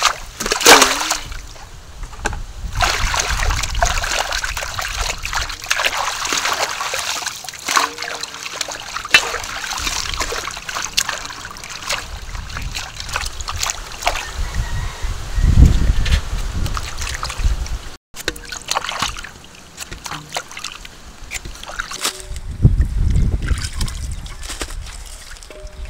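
Water splashing and sloshing in a large metal basin as raw green mangoes and their leaves are washed by hand, with water gushing into the basin at first. A low rumble swells up about halfway through and again near the end.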